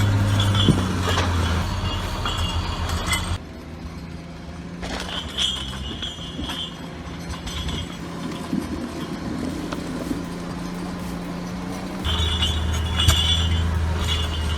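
Heavy logging machinery running steadily, with scattered metallic clinks. The sound changes abruptly about three seconds in and again near twelve seconds.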